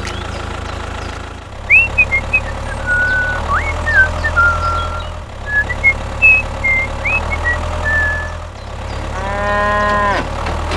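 A cow mooing once, loud and drawn out, about nine seconds in, probably a sound effect to go with the toy cattle in the trailer. Before it, short high whistled chirps come and go over the steady low hum of a small motor.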